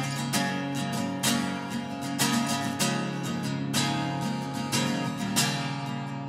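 Background music: acoustic guitar strumming with regular strokes.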